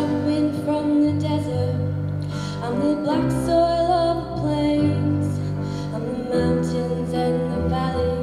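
A girl singing into a microphone over an instrumental accompaniment of held chords that change every second or two.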